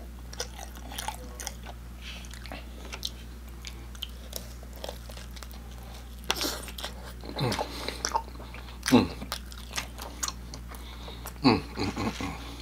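Close-miked eating of a pepperoni pan pizza slice. After a few seconds of faint small clicks there is a bite, then wet chewing and mouth sounds, with a couple of hums that fall in pitch.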